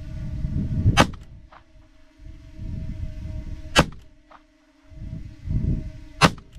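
Three shots from a Ruger LCR snub-nose revolver firing .22 Long Rifle CCI Stinger rounds, spaced about two and a half seconds apart. Each is a sharp crack followed about half a second later by a fainter one.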